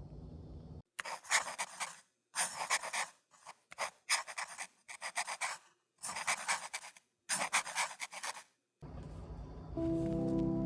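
Crinkly packaging rustling and crackling as it is handled, in about six short bursts with abrupt cuts between them. Background music comes in near the end.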